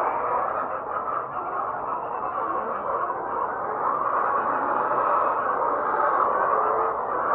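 A large flock of laying hens clucking together, a steady mass of many overlapping voices.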